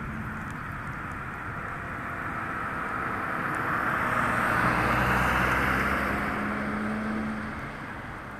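A car passing on a wet road: tyre hiss with a low engine hum swells to a peak about halfway through and then fades away.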